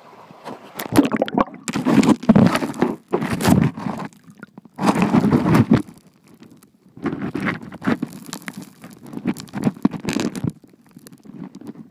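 Underwater sound picked up by a camera held in a shallow river: irregular bursts of gurgling water with crunches and scrapes of the camera against the gravel bed. It quietens after about ten and a half seconds.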